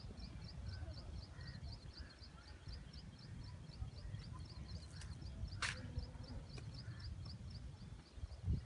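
Low rumble of wind and handling on a phone microphone outdoors. Over it, a faint high chirp repeats evenly about four times a second, and there is one brief hiss a little after halfway.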